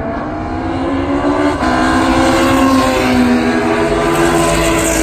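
Racing saloon cars' engines at full throttle, growing louder as they come down the straight. The engine note breaks briefly about a second and a half in and then carries on.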